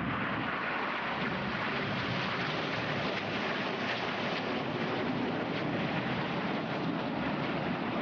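Jet aircraft engine noise from a flypast: a loud, steady rushing noise with no distinct tones, holding level throughout.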